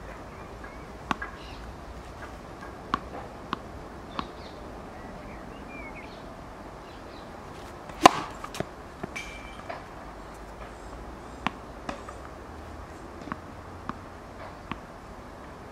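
Tennis racket striking the ball on a serve: one sharp crack about eight seconds in, the loudest sound. Lighter scattered taps and knocks come before and after it.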